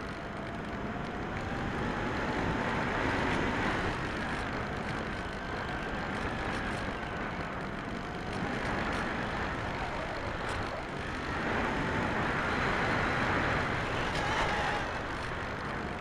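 Bixler 3 RC plane's electric pusher motor and propeller whining, heard from the onboard camera. The pitch slowly rises and falls, dipping near the middle, under a steady rush of wind over the airframe.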